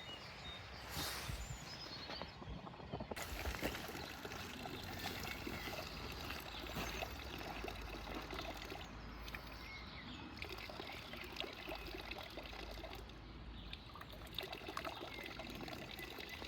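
Water trickling and running steadily, like a small stream, with scattered light clicks through it.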